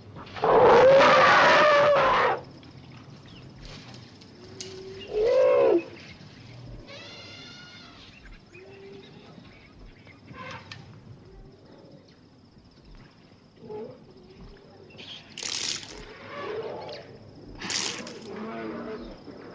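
Elephant trumpeting: one loud blaring call about two seconds long near the start, then a shorter call that drops in pitch about five seconds in, with fainter calls later.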